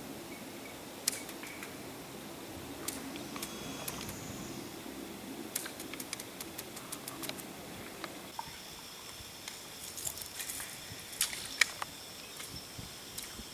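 Scattered light clicks and ticks, with a faint low hum during the first eight seconds and a thin, steady high whine from about eight seconds in.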